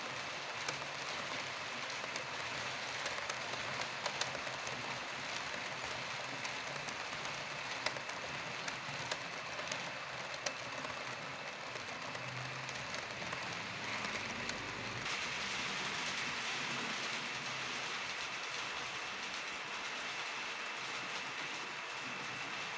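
H0-scale model passenger coaches rolling along the track: a steady rushing hiss of wheels on the rails, with scattered light clicks.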